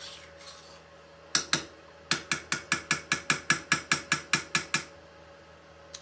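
Metal spoon clinking against the inside of a metal saucepan while a syrup is stirred: two clicks, then a quick, even run of about fifteen clicks at about five a second.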